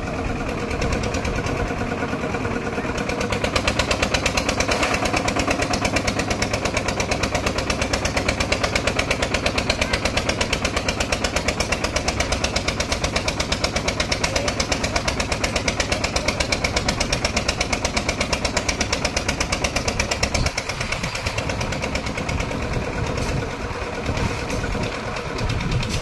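Engine of a lift-type concrete mixer running with a steady pulsing beat. It works harder from about three seconds in, while smoke pours from the machine, and eases off and turns rougher at about twenty seconds in.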